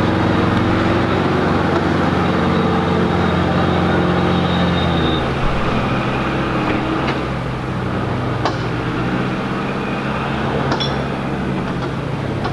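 Motor vehicle engine running steadily, its note changing about halfway through, with a few short knocks in the second half.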